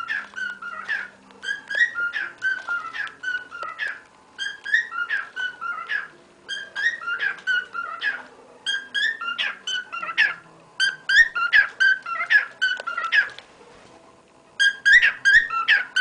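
Cockatiel singing: phrases of short whistled notes that slide up and down in pitch, repeated over and over, with a pause of about a second near the end.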